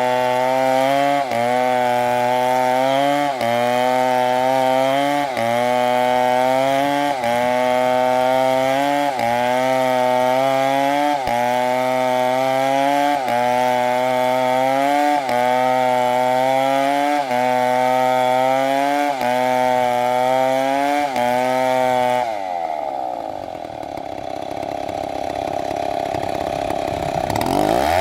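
Chainsaw running at high revs while cutting wood, its pitch dipping and recovering about once a second. About 22 seconds in the revs fall away sharply, then climb back up near the end.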